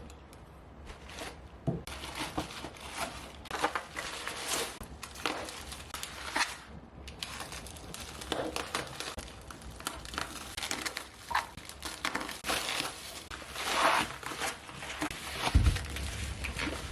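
Typing on a Keychron V1 mechanical keyboard with brown tactile switches and PBT keycaps: a fast, continuous run of key clacks, with a brief pause about seven seconds in and a deeper thump near the end.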